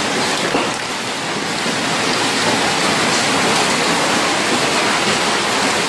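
Heavy hailstorm: hail and rain pouring down steadily as one dense, even noise, with no single strikes standing out.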